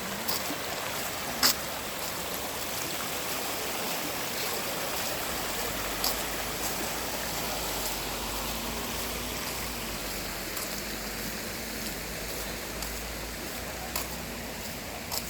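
Mountain stream running over rocks: a steady rush of water, with a few sharp clicks now and then.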